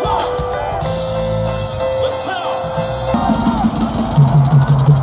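Live rock band playing in an arena, heard from among the crowd. A held keyboard note rings over the music, and heavier bass and drums come in about four seconds in.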